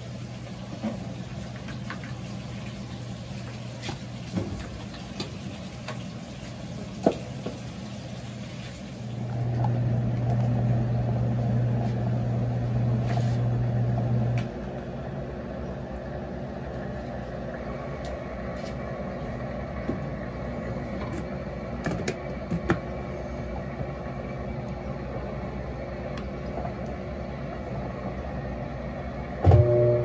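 GE Imagination 10 kg top-load washing machine draining its wash water: the drain pump hums steadily, grows louder for about five seconds midway, then drops back. A few light clicks follow, and near the end the motor starts with a sudden thump and the basket begins its spin.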